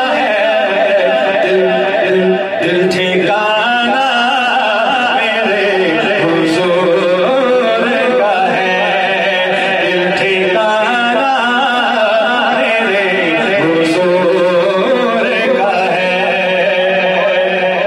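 A man singing a naat, an Urdu devotional poem, into a microphone, drawing out long wavering, ornamented notes without a break.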